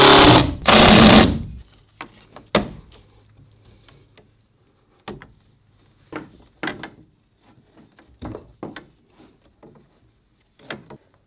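Cordless drill driving a screw into a wood block, running twice briefly in the first second and a half. After that, scattered clicks and rustles as PEX tubing is handled and pressed into plastic pipe brackets.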